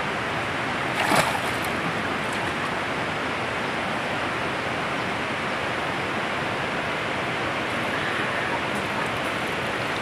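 Fast-flowing, flooded river water rushing steadily around a person wading in it, with a brief splash about a second in.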